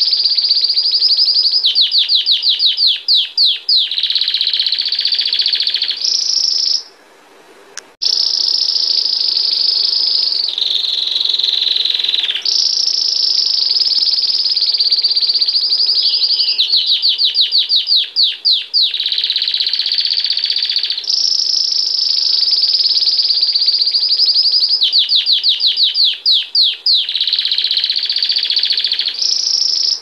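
Domestic canary singing a long, loud song: high rolling trills alternate with fast runs of rapidly repeated notes. The song breaks off for about a second a quarter of the way in, then resumes.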